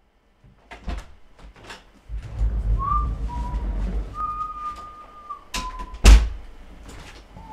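A man whistling a few short notes and one held note while he moves about close to the microphone. Scattered knocks and low handling rumble run under the whistling, and a loud thump comes about six seconds in.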